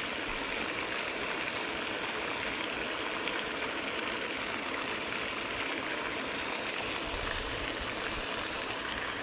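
Pond fountain spraying and falling back onto the water: a steady, even splashing hiss.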